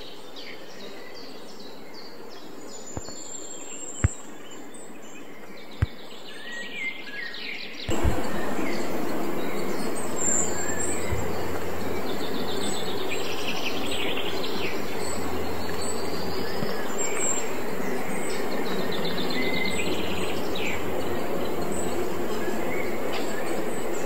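Small birds chirping over a quiet outdoor background, with two sharp clicks. About eight seconds in, a louder steady rushing noise with a low hum cuts in abruptly and carries on under the birdsong.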